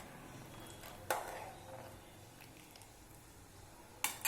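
A utensil knocking against a cooking pot: one sharp knock about a second in and two quick clicks near the end, over a faint hiss from the boiling rasam, as ground masala paste is added to it.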